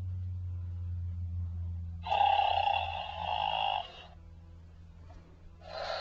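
Toy voice box playing a recorded snore through its small speaker: one snore about two seconds in that lasts about two seconds, and the next starting near the end, over a low steady hum.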